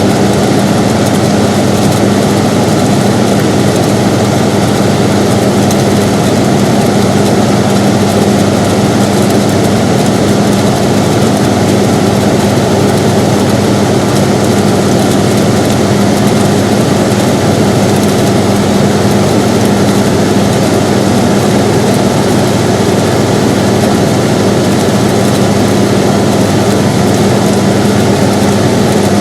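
Air conditioner running steadily: a constant whooshing of air with a low, even hum.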